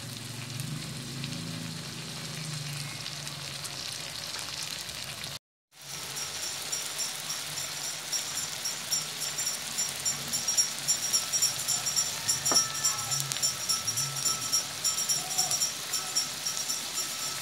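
Shrimp frying in butter, garlic and Sprite in a wok, sizzling and bubbling with many small crackling pops. The sound cuts out for a moment about five seconds in, and the pops come thicker after that.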